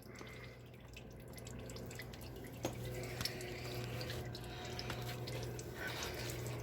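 Engine oil running and dripping from the Toyota Tundra's oil filter mount into a drain pan after the filter is removed: a soft steady trickle with scattered drips, slowly getting a little louder.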